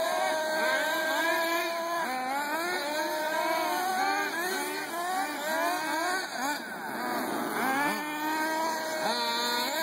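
Small 4.1 cc glow-plug nitro engines of Reely Overheater 4.1 RC buggies running at high revs. Their pitch rises and falls over and over as the throttle is worked, with more than one engine note overlapping.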